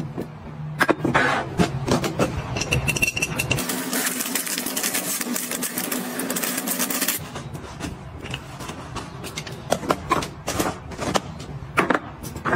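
Clicks and light knocks from a plastic dispenser cap and glass containers. Then, about four seconds in, a steady hiss of fine table salt poured from a plastic bag into a glass jar, lasting about three and a half seconds. It is followed by scattered clicks and taps of plastic canisters and lids set down on a countertop.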